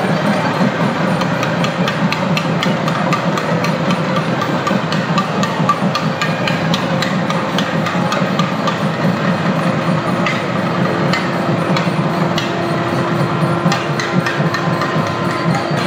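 Kerala temple percussion ensemble playing in a dense crowd: many quick, sharp drum and cymbal strokes over a steady low din. A held note joins in about ten seconds in.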